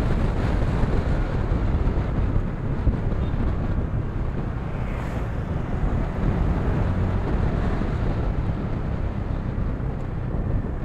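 Wind rushing over the microphone of a moving motorcycle, over a steady low engine hum.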